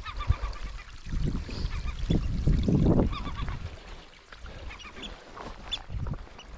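Herring gulls calling overhead in short, repeated cries, over a low rumble of wind buffeting the microphone that is strongest about two to three seconds in.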